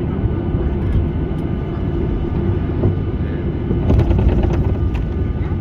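Steady low rumble of a Boeing 737-800 heard from inside the passenger cabin, engine and airflow noise, with a few light clicks and rattles about four seconds in.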